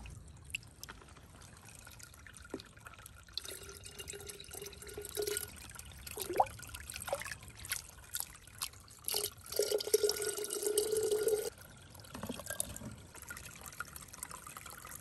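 Shallow brook water trickling while a clear plastic container is dipped in and lifted out, water pouring and dripping off it, with two louder spells of pouring about four and ten seconds in.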